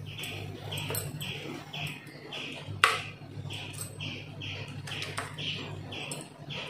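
A bird chirping over and over, about twice a second, with a low steady hum underneath. About three seconds in comes a single sharp clink of a metal spoon against a steel plate as thick pudding is scooped from the pot.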